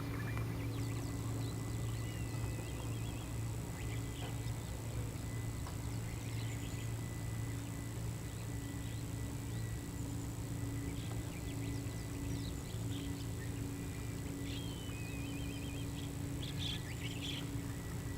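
Small birds chirping and trilling now and then over a steady low hum, with more chirps near the end.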